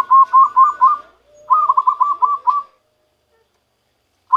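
Zebra dove singing its natural song: quick runs of short, rolling coo notes, two phrases with a brief break between them, then a pause of over a second before a new phrase starts at the very end.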